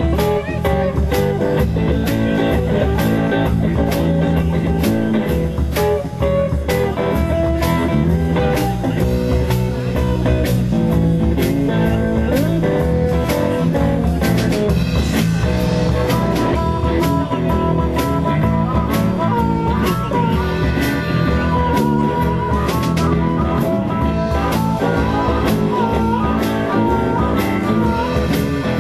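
A blues band playing live: guitar over a steady drum-kit beat, with a wavering high lead line coming in about halfway through.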